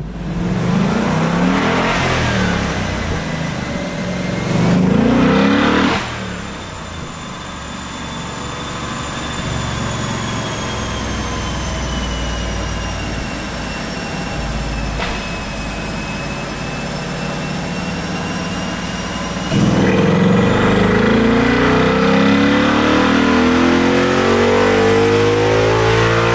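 Ford Mustang's 5.0 L Coyote V8, fitted with a prototype twin intake, running on a chassis dyno: two short revs, then a steadier stretch, then about two-thirds of the way in a full-throttle dyno pull with the engine note climbing steadily to the end.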